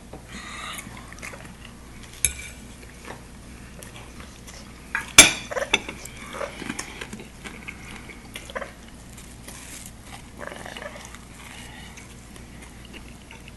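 Scattered light clinks and taps of cutlery and dishes at a meal, with one sharp clink about five seconds in.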